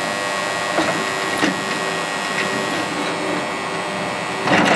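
Drill press running steadily, its small twist bit cutting into a thin curved sheet-metal scabbard fitting, with a few light clicks and a louder spell of cutting near the end.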